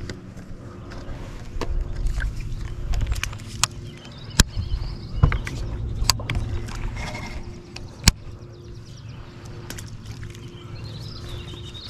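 Steady hum of a small electric motor on a bass boat, with sharp clicks and knocks from a baitcasting rod and reel being handled and cast.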